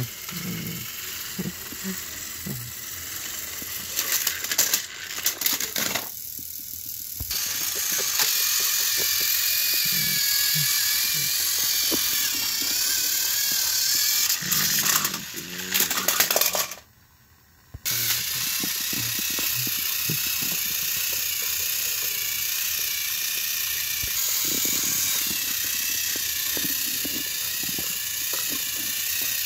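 Battery-powered Thomas & Friends toy engines running on plastic track: a steady high motor whir with wheels rattling and light clicks, broken by about a second of silence about two-thirds through.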